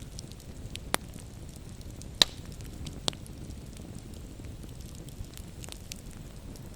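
Wood campfire burning with a low steady rumble and scattered small crackles, with three sharp pops about one, two and three seconds in, the middle one the loudest.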